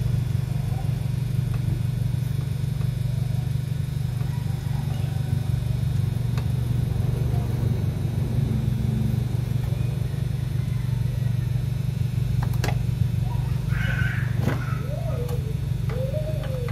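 Steady low mechanical hum from a running motor or machine, with a few sharp clicks in the last few seconds.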